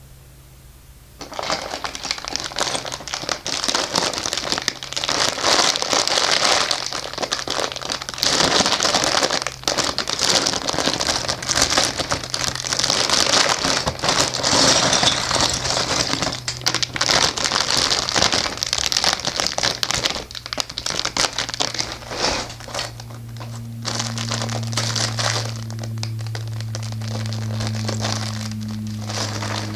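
Crinkling plastic LEGO parts bags being handled, a dense run of crackles and rustles that starts about a second in. A low steady hum comes up under it near the end.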